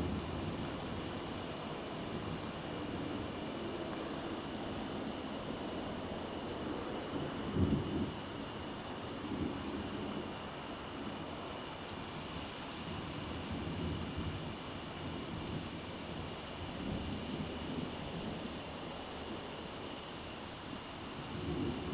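Steady high-pitched trilling of a night insect chorus, with shorter, higher chirps every second or two. A low rumble swells and fades underneath and is briefly louder about eight seconds in.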